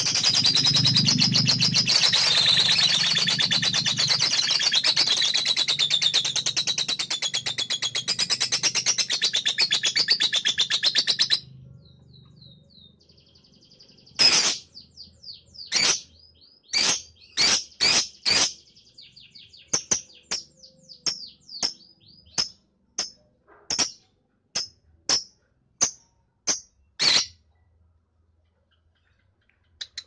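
Lovebird giving a very rapid, unbroken trilling chatter, the long 'ngekek' song, for about eleven seconds before it cuts off suddenly. It follows with a string of short, sharp single chirps, roughly one a second, that stop a few seconds before the end.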